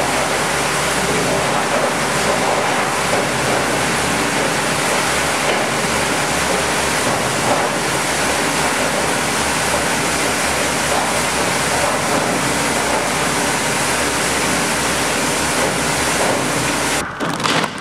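DREHER S 34/52 SRV granulator (cutting mill) running under load, grinding plastic start-up lumps; the ammeter reads about 55–60 A. It makes a loud, steady, dense noise of rotor and crushed plastic, which cuts off abruptly near the end.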